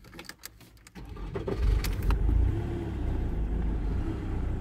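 A few light clicks, then about a second in a Ford Mondeo's engine starts, rises briefly and settles into a steady idle.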